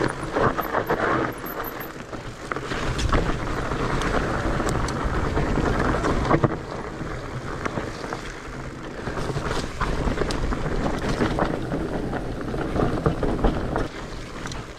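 Mountain bike rolling down a rough, muddy singletrack, with wind rumbling on the camera microphone and scattered knocks and rattles from the bike over bumps. The wind rumble eases near the end.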